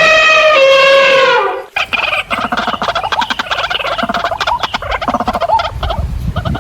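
An elephant trumpeting in one long, pitched, horn-like call that stops sharply about a second and a half in. After a short gap comes a busy run of rapid, chattering calls from fowl.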